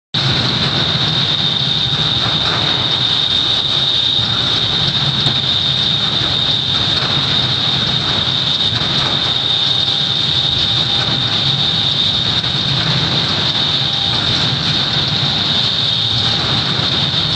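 Seismic shake table running an earthquake test: a loud, steady mechanical rumble with a constant high-pitched whine, starting abruptly and holding unchanged.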